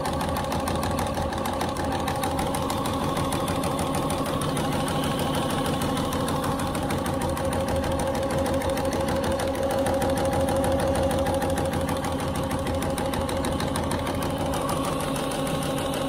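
Crop sprayer pump running alongside the engine: a steady mechanical drone with a fast, even knocking pulse, which the operator hears as not sounding very good. The sprayer has lost all its pressure, a fault later put down to worn seals in the prime and purge valve.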